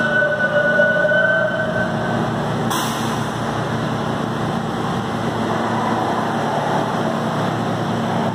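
Subway train running through the underground station: a steady rumble, with two steady whining tones over the first couple of seconds.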